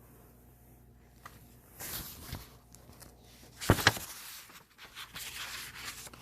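Rustling and handling noises, with one sharp knock a little past halfway.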